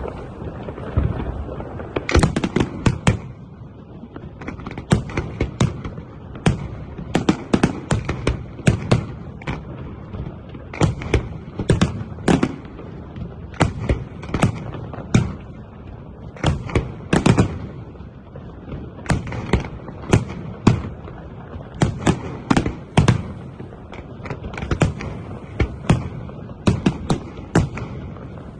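Fireworks display: shells bursting in quick succession, sharp bangs often coming in clusters of two to four, over a continuous low rumble.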